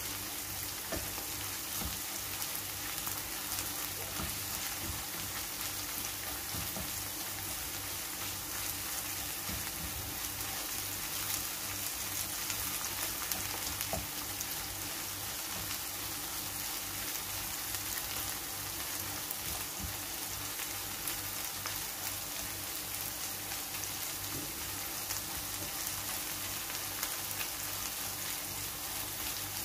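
Chopped peppers, onion, meat and tomato paste sizzling steadily in a nonstick frying pan, with light scrapes of a silicone spatula stirring them. This is the paste being sautéed until its raw smell cooks off.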